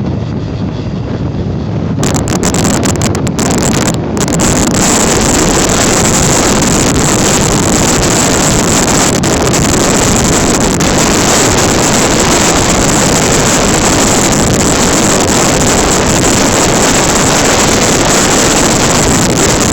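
Wind rushing and buffeting over the microphone of a motorcycle moving at speed, with vehicle engine noise mixed in. It grows louder about two seconds in, then stays steady.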